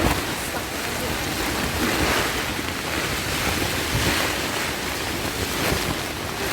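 Heavy rain and gusting wind beating on a tent, heard from inside: a steady rush of noise that swells a few times with the gusts.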